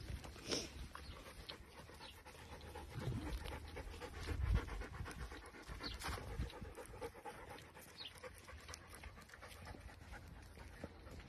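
A brindle greyhound-type dog panting as it walks, with soft footstep scuffs on a dirt path.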